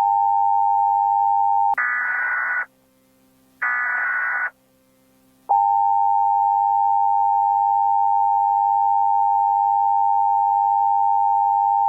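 Emergency Alert System tones: a steady alert tone, then two short bursts of digital header data, each just under a second long, then the long steady attention tone starting about five and a half seconds in.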